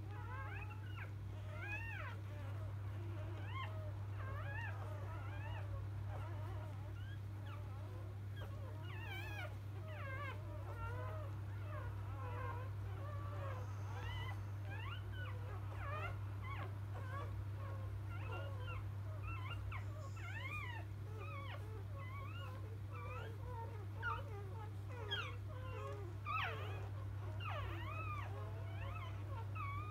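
Newborn Labrador Retriever puppies squeaking and whimpering almost without pause: many short, high cries that rise and fall in pitch, with a few louder ones near the end, over a steady low hum.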